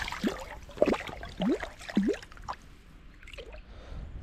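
Water plopping and splashing as a small brown trout thrashes at the lake surface while being landed by hand: about four quick plops in the first two seconds, then quieter lapping.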